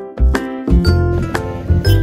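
Background music: short pitched notes over a repeating bass beat.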